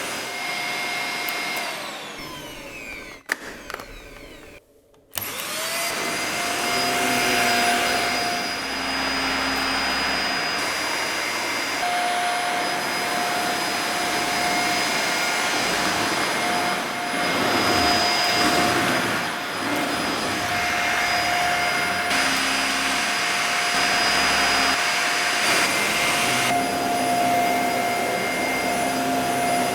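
Dyson Small Ball upright vacuum cleaner running with a steady whine. About three seconds in its motor winds down and falls almost silent, then it switches back on about five seconds in, spins up and runs steadily again.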